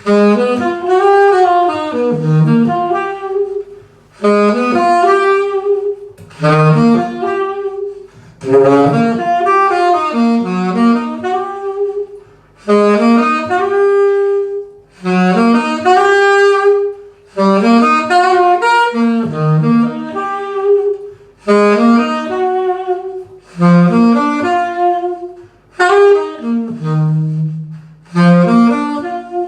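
Saxophone playing a jazz line in short phrases of about two seconds, each followed by a brief pause.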